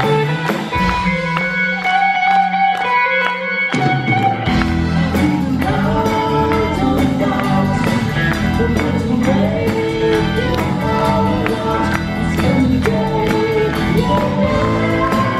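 Live rock band playing through a hall PA: electric guitar and keyboards. The bass and drums drop away for a few seconds, then come back in about four seconds in, and the lead singer comes in over the full band.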